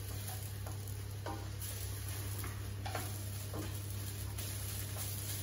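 A utensil stirring noodles and chicken in a hot frying pan: irregular scrapes and taps against the pan over a low sizzle, with a steady low hum beneath.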